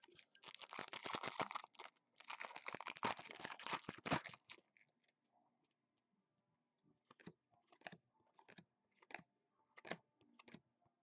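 Foil wrapper of a Prestige football card pack being torn open and crinkled, in two spells of about two seconds each, then scattered light clicks as the cards are handled.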